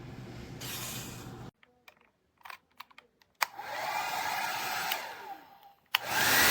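Conair 1875 W travel hair dryer handled with a few clicks, then run on a low setting, its motor falling in pitch as it winds down. After a click near the end it starts up and runs loudly with a steady high whine.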